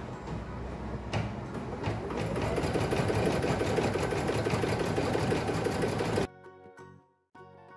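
Brother Innov-is BP2150L embroidery machine stitching a placement outline, a rapid even run of needle strokes that starts and speeds up about two seconds in. Before it, handling of the fabric and hoop with a click about a second in. The machine cuts off sharply near the end and background music follows.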